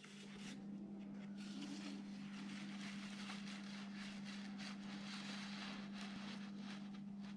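Faint room tone: a steady low hum under a light hiss, with a few soft rustles now and then.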